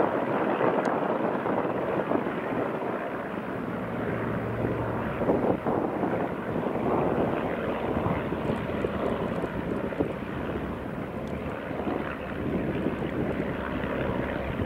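De Havilland Tiger Moth biplane's piston engine and propeller droning steadily in flight, with wind noise on the microphone.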